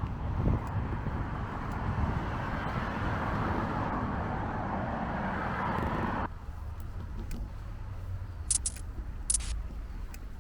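Steady street ambience with road traffic noise, which cuts off abruptly about six seconds in. A quieter low rumble follows, with three short high-pitched chirps near the end.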